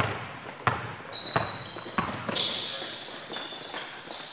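Basketball dribbled on a gym floor, a few sharp bounces about two-thirds of a second apart. From about a second and a half in, high-pitched sneaker squeaks on the court.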